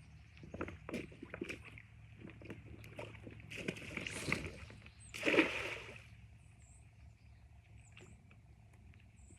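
Scattered knocks and handling noises, then two splashes in water, the second and louder about five seconds in.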